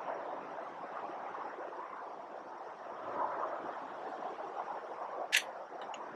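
Steady noise of traffic on a major highway about 60 yards away. A single sharp click comes about five seconds in.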